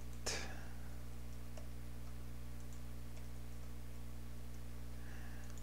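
Steady low electrical hum with a few faint computer keyboard clicks as text is typed, and a brief hiss of noise just after the start.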